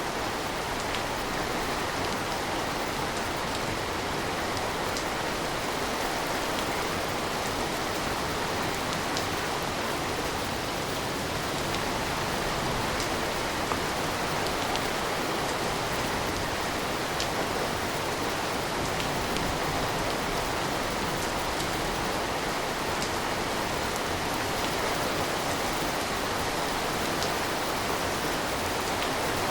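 Steady rain falling, with occasional single drops ticking clearly through the even hiss.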